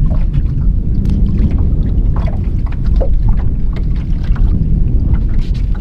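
Strong wind buffeting the microphone, a steady heavy low rumble, with scattered light ticks and slaps over it.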